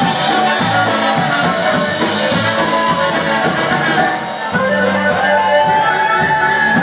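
Live polka band playing, led by two trumpets over electric bass guitar with a steady beat. About four and a half seconds in the sound dips briefly, and then a smoother line of long held notes comes forward.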